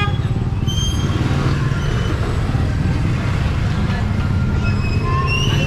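Street traffic: a steady low engine rumble from passing vehicles, with faint voices and small high-pitched sounds mixed in.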